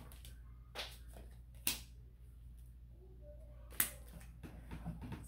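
Tarot cards being shuffled by hand: faint rustling broken by three sharp card snaps spread over a few seconds.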